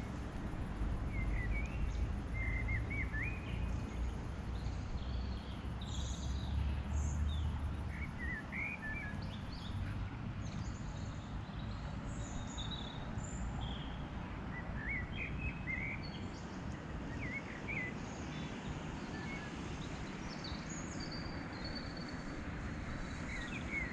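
Small birds calling in short chirps and twittering phrases, scattered through, over a steady low rumble that is heavier in the first half.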